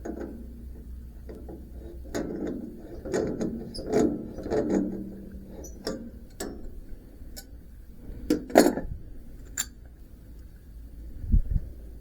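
Irregular metal clicks and knocks of hand work on a bandsaw sawmill's blade guide bearings, loudest about two-thirds of the way through, with a dull low thump near the end.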